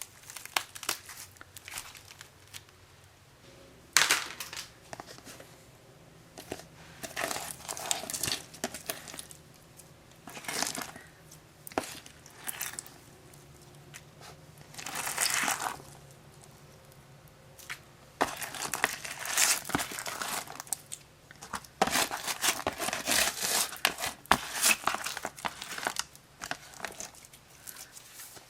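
Old dried-up crunchy slime being squeezed and worked by hand, crackling and crinkling in irregular bursts, with a sharp click about four seconds in and a busier run of crackles in the second half.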